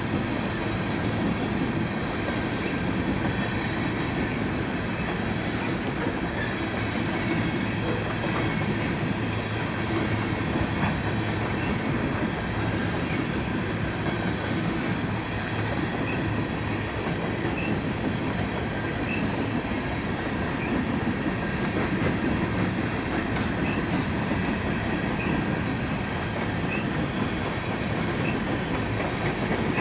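BNSF coal train cars rolling steadily past, wheels clicking and rumbling over the rail joints, with short faint wheel squeals now and then in the second half.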